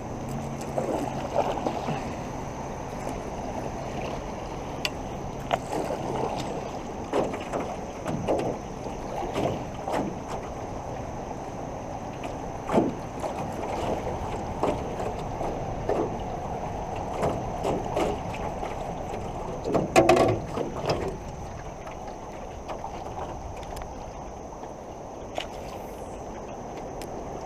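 Fast, flood-high creek water rushing and splashing around a drifting canoe, with scattered knocks and splashes against the hull and a louder cluster of them about two-thirds of the way through.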